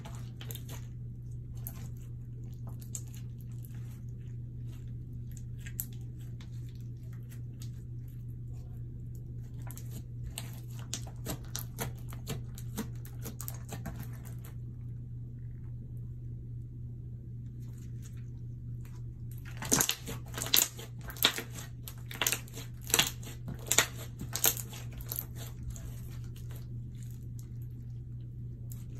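Slime being kneaded and stretched by hand: soft sticky crackles and squelches, with a run of louder sharp pops about two-thirds of the way through. A steady low hum runs underneath.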